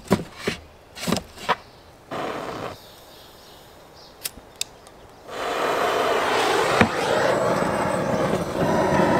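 Split firewood knocked into place in a steel fire ring, then two sharp clicks of a hand-held propane torch's igniter, and from about halfway through a loud, steady hiss of the lit torch flame playing on the kindling.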